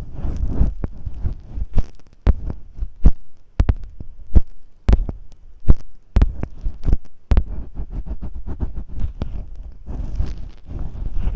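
Masking tape worked right against a microphone in imitation of ear cleaning: low rumbling scrapes and rubbing with many sharp sticky clicks and pops, thickest in the middle of the stretch, then easing into steadier scratchy rubbing.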